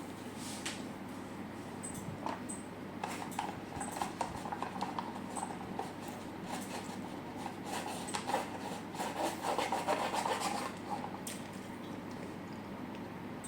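Close-miked eating: chewing with wet mouth clicks and crisp crunching strokes, busiest and loudest near the middle.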